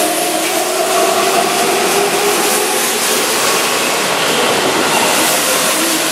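Keihan 9000-series electric train (VVVF inverter set) moving along the platform: a steady run of wheel-on-rail and car noise with a faint motor whine over it.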